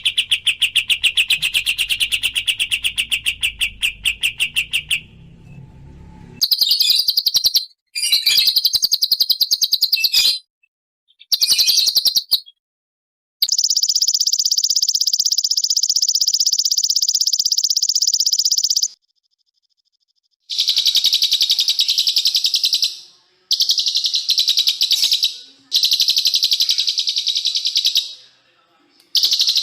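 Small songbird singing very fast, dense strings of high repeated notes and rapid trills, in bursts of a few seconds that start and stop abruptly with short silent gaps between them.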